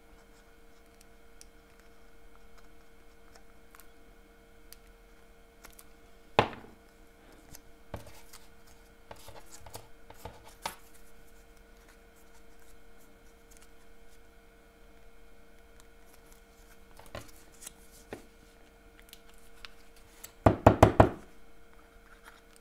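Close handling of paper craft pieces and a liquid glue bottle while small paper leaves are glued under a paper flower: soft rustling and scattered light clicks. There is one sharp tap about six seconds in, and a quick run of sharp taps near the end, the loudest sound.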